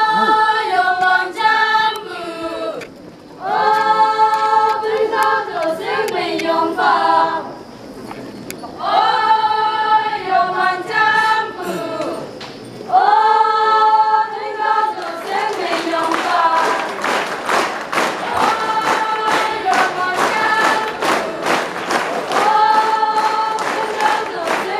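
A choir singing a slow song in long, held phrases with short breaks between them. From about halfway through, many short sharp strikes sound behind the singing.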